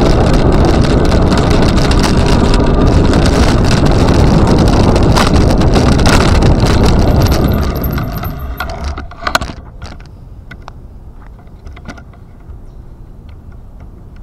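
Wind buffeting the microphone of a camera carried along on a moving ride, loud and steady, then dying away about eight seconds in as the ride slows, with a thin high squeal just before. Afterwards a quieter outdoor background with scattered light clicks and rattles remains.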